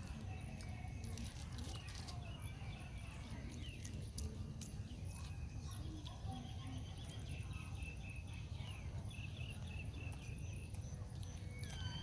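Outdoor ambience: a steady low rumble, with scattered short high chirps and clicks.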